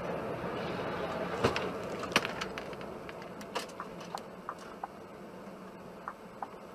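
Steady road and tyre noise of a car driving at motorway speed, heard from inside the vehicle on its dashcam, slowly getting quieter. A few sharp clicks and knocks break in, the loudest about one and a half and two seconds in.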